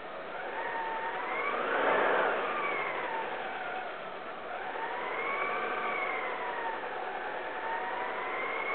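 Alfa Romeo 147 Twin Spark petrol engine revved up to about 2,500 rpm, heard at the exhaust. The pitch rises to a peak about two seconds in and falls back, then rises again and holds.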